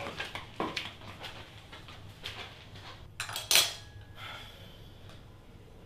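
Cutlery clinking and scraping on dinner plates in short scattered clicks, with one louder, longer clatter about three and a half seconds in.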